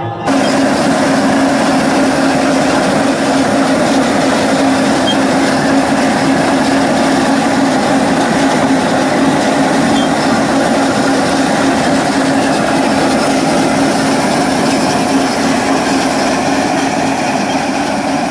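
Tractor-drawn New Holland haybine mower-conditioner running while cutting hay: a loud, steady mechanical drone with a constant hum.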